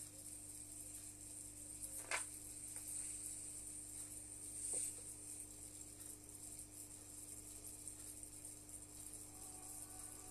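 Faint, steady hum and hiss of aquarium equipment such as a pump, with one sharp click about two seconds in.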